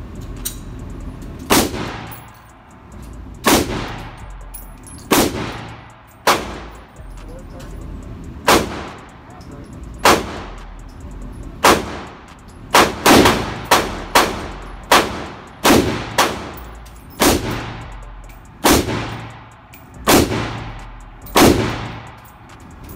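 Draco AK-pattern pistol in 7.62×39 mm fired one shot at a time for slow, aimed fire: about eighteen sharp shots, mostly a second or two apart, with a quicker run of shots in the middle. Each shot leaves a short echo off the indoor range's walls.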